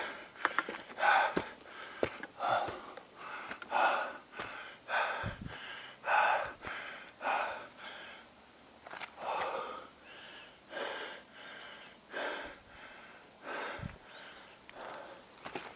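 A hiker's heavy breathing close to the microphone, one hard breath about every second and a bit, from the effort of walking a steep rocky mountain trail. There are a couple of soft thuds of footfalls on the dirt path.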